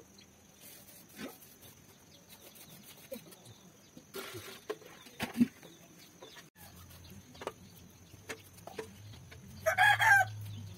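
A chicken calls once, loudly and briefly, near the end, over a quiet background of faint scattered knocks and a low steady hum.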